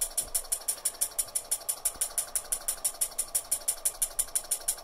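24 V DH48S-S timer relay clicking rapidly, about ten clicks a second, as it switches its LED load on and off in its fastest cycle. A steady hum from the power supply runs underneath.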